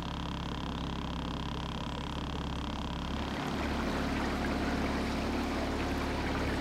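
Small fibreglass cruiser's motor running steadily under way, with a water-like hiss; the sound gets a little louder about halfway through.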